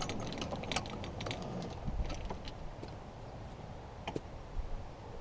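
Golf cart rolling along a cart path with a low rumble and scattered light clicks and rattles, like clubs knocking in the bag and loose parts on the cart. The clicks thin out as it goes on, with a couple of sharper knocks near the end.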